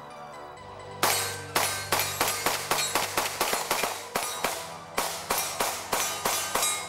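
Rapid semi-automatic pistol fire from two SIG pistols, a P226 in .357 SIG and a P229 in .40, shot together: over twenty shots, several a second, starting about a second in and stopping just before the end, over background music.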